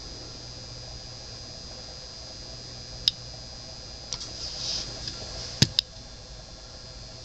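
Geiger counter clicking irregularly, picking up radiation from the luminous-painted hands of an old clock: one sharp click about three seconds in and two in quick succession a little after halfway. A faint steady high whine sits under the clicks, and the counter is handled briefly near the clicks.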